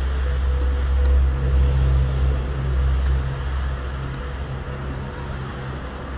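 A loud, steady low rumble that swells and eases a little over a few seconds.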